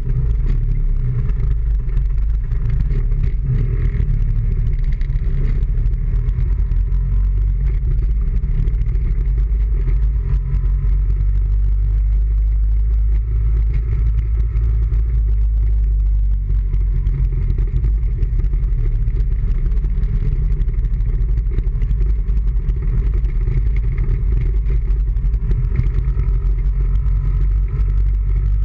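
Steady low rumble of a vehicle driving along a street, heard from a camera mounted low on its front body, with a faint engine note shifting in pitch above it.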